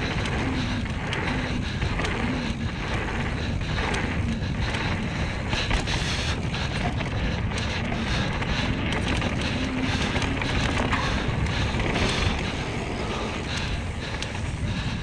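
Mountain bike descending a dirt trail at speed: knobby tyres rolling over packed earth, wind buffeting the action camera's microphone, and frequent short rattles and knocks from the bike over bumps.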